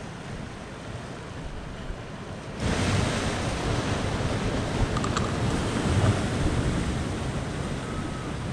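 Sea surf washing over a rocky shore, with wind buffeting the microphone. The rushing noise turns suddenly louder about two and a half seconds in.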